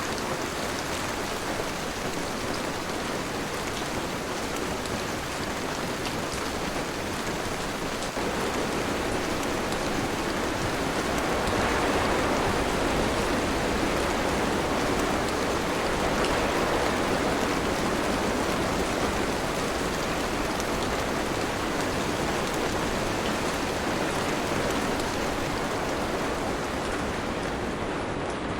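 Steady rain falling, an even hiss that steps up a little about eight seconds in and swells louder through the middle.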